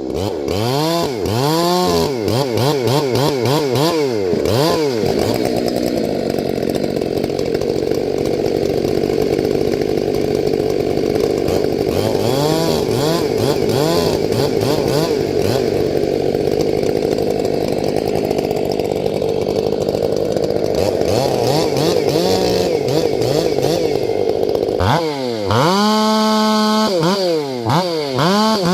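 Ported two-stroke chainsaw with a 28-inch bar cutting firewood: blipped up and down in quick revs, then held at full throttle and pulled down lower in the cut for several seconds, twice. Near the end it runs at high revs out of the wood.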